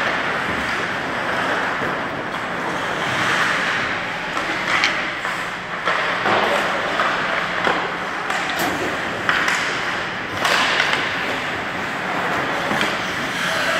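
Ice hockey play: a steady scraping hiss of skates on the ice with scattered sharp clacks of sticks on the puck.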